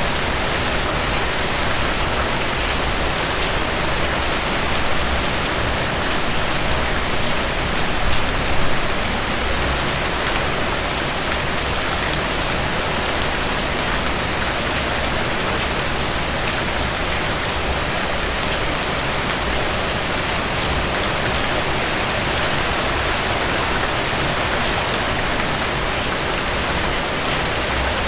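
Heavy rain falling steadily, a dense even hiss of drops with fine individual drop ticks; it swells slightly about eight seconds in.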